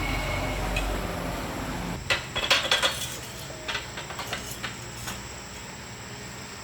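Metal tools or parts clinking and clicking against each other in a cluster about two seconds in, with lighter scattered clicks after, following a low steady rumble that fades out about two seconds in.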